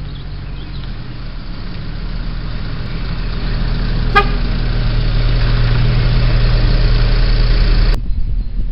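A road vehicle's engine approaching and growing steadily louder, with one short horn toot about four seconds in. The sound changes abruptly near the end.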